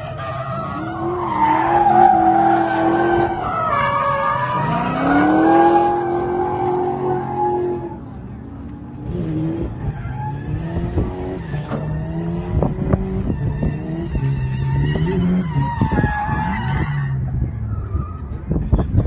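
Drift car's engine revving hard up and down as it slides through a turn with its tyres squealing. The revs drop away about eight seconds in, then a second car's engine rises and falls again as it drifts.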